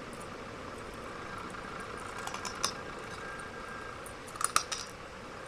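Light-bulb glass crunching between teeth as it is chewed: a couple of faint crunches around the middle, then a quick cluster of sharper crunches near the end.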